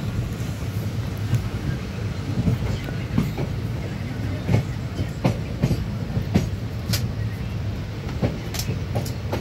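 Train running on the rails, heard from on board: a steady low rumble with irregular clicks and knocks from the wheels.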